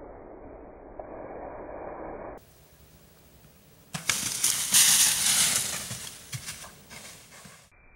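Whitetail buck crashing away through dry fallen leaves: a sharp crack about four seconds in, then a loud crackling rustle with many snapping clicks that fades over about three and a half seconds. Before it, a muffled low rushing sound of slowed-down audio, then a short quiet.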